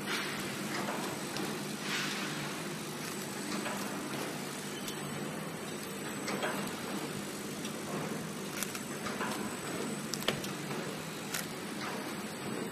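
Transparent-film three-dimensional overwrapping machine running as it wraps bouillon cube boxes in clear film: a steady motor hum with scattered sharp clicks from its mechanism.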